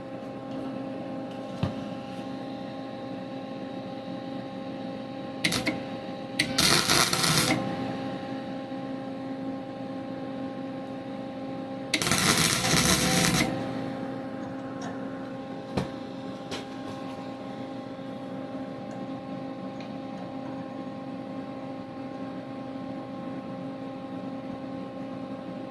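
Welder humming steadily, with two short stretches of welding of about a second and a half each, about six seconds in and again about twelve seconds in, as braces are tacked onto the lawn tractor's steering; a few light clicks between them.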